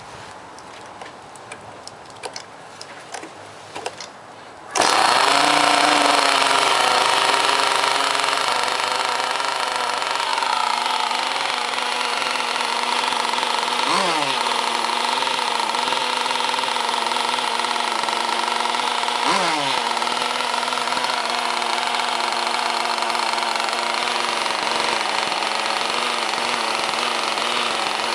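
Zenoah two-stroke gas engine of an RC racing boat starting about five seconds in after a few light clicks and knocks, then running steadily. Its pitch dips and recovers briefly twice.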